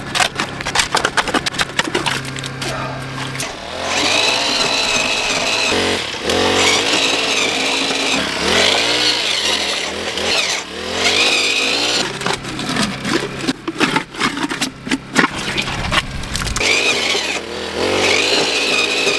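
Small engine of a post-hole earth auger running and labouring, its pitch rising and falling as the bit grinds into rocky clay. A rapid run of clicks and knocks comes in the first few seconds, before the engine sound settles in.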